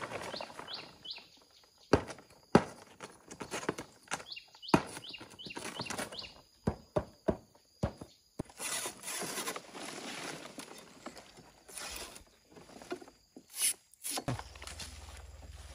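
Irregular knocks, taps and rustling, with runs of short high chirps from small birds near the start and again about six seconds in.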